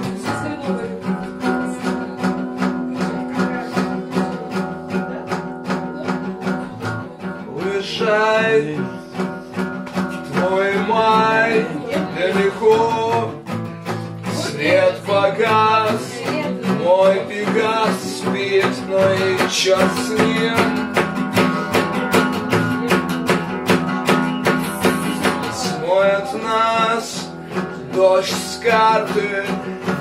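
Acoustic guitar strummed steadily, with a man's voice singing in phrases over it from about eight seconds in.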